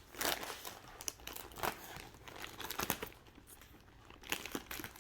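Wrapping of a mail-order yarn package crinkling and tearing as it is cut and pulled open by hand, in irregular crackly rustles and rips.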